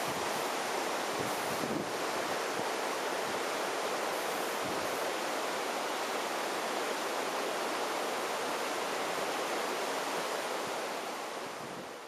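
Steady rushing of the Ogwen waterfall and river cascading over rocks, with some wind buffeting the microphone. The sound fades out near the end.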